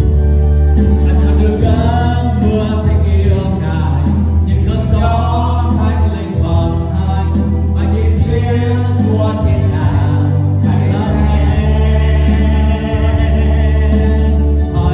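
Live worship music: a group of voices singing over a band with a heavy, sustained bass and repeated high percussive hits.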